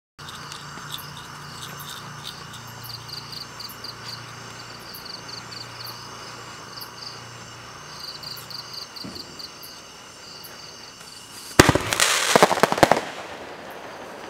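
Cosmic Fireworks 'Fire Devil' fountain mine going off: a sudden loud burst about eleven and a half seconds in, followed by a rapid run of crackling pops for over a second. Before it, steady faint chirping of crickets.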